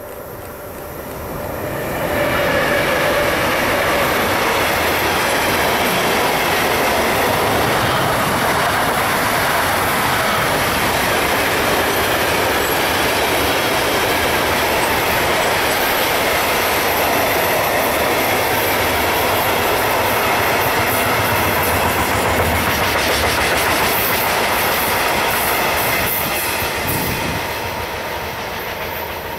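A train passing close by: steady loud noise of wheels running on the rails, swelling up about two seconds in and easing off near the end.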